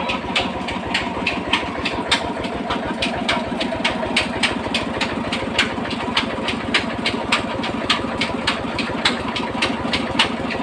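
Village atta chakki (flour mill) running steadily, with an even knock about three times a second.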